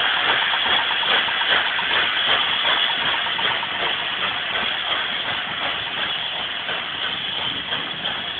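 LNER A4 three-cylinder Pacific steam locomotive pulling its train away, with quick, regular exhaust beats over a steady steam hiss, slowly growing fainter.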